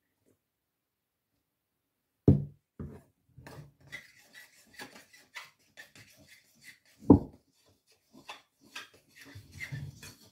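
A utensil stirring milk into scone dough in a ceramic mixing bowl, scraping and clicking against the bowl in quick irregular strokes. Two loud knocks stand out, about two seconds in and about seven seconds in.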